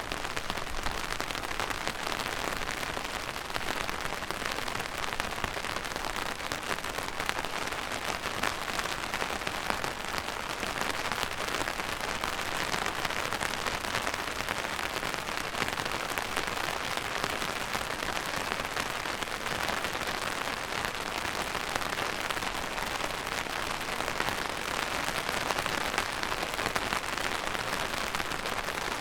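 Steady rain falling on a surface: a dense, even patter of many drops with no letup.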